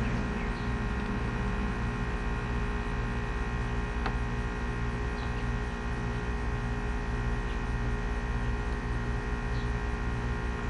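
Steady electrical hum with many overtones, with a faint click about four seconds in.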